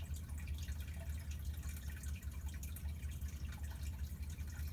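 Room tone: a steady low hum with faint, scattered small ticks and clicks.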